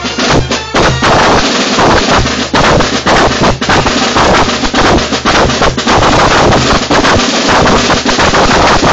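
Loud carnival drum music, harsh and distorted through a mobile phone's microphone. From about a second in, the beat is buried under a dense, continuous crackling noise that eases just before the end.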